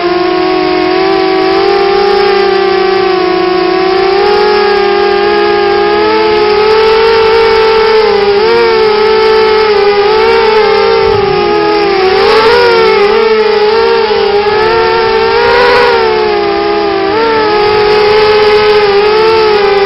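CGX 250 FPV quadcopter's motors and propellers whining, the pitch wavering up and down with the throttle, with sharper swoops twice near the middle.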